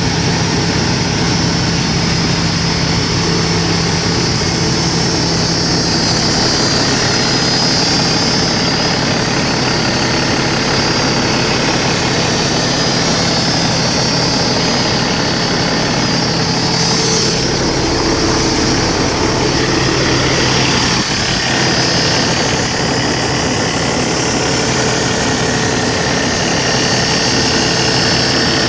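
Diesel engine of a 2012 Kenworth T660 semi tractor idling steadily, heard close up at the open engine bay.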